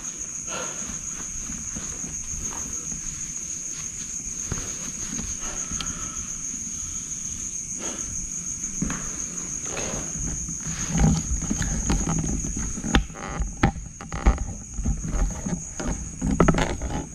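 Night insects keeping up a steady high-pitched trill, over footsteps and knocks of the camera being handled, with more clicks and thumps in the last several seconds.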